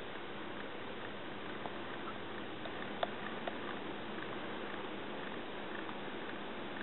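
Steady hiss of room tone and recording noise, with a few faint ticks, the clearest about three seconds in.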